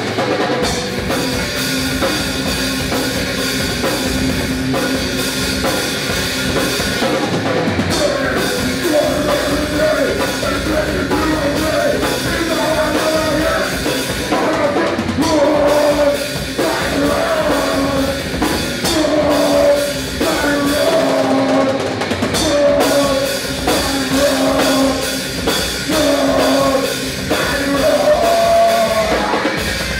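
Live rock band playing: electric guitars, bass guitar and drum kit, with a male vocalist singing into the microphone from partway through.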